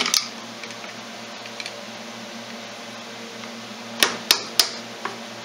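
Hammer blows on a hand impact driver with a Phillips bit, used to break loose stubborn screws. There is one sharp knock at the start, then from about four seconds in a run of quick strikes, about three a second.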